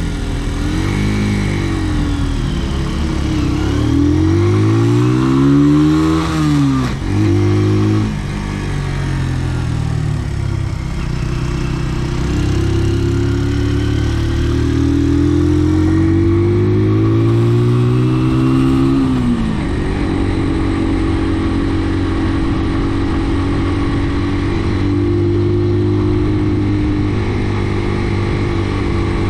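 Brixton motorcycle's engine running under way, its pitch rising and falling with the throttle: several short climbs and drops in the first eight seconds, a long steady climb that drops off sharply about two-thirds of the way through, then steady running.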